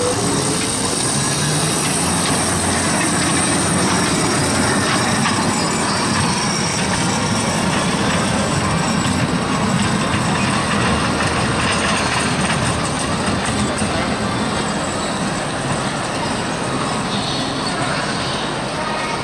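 15-inch gauge miniature train with riders aboard rolling past on its track, over a steady background of crowd noise.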